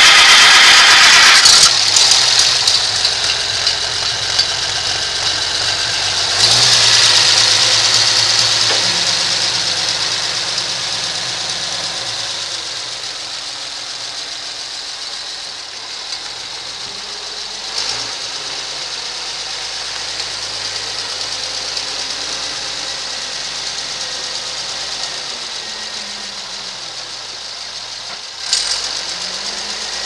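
1965 Oliver 1550 industrial tractor engine running just after starting, loudest for the first second or so. It revs up about six seconds in and eases down to a steady run, with a brief rise again near the end.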